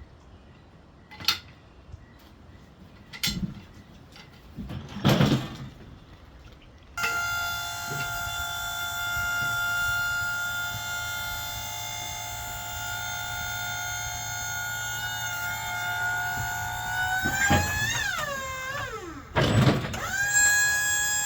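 A few scattered knocks, then an engine starts running steadily. Near the end its pitch drops and climbs back up as the throttle changes.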